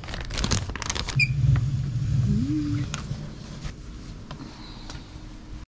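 Plastic bag crinkling for about the first second, then the low rumble and creaking of a cast-iron hand-cranked noodle roller pressing dough into a sheet.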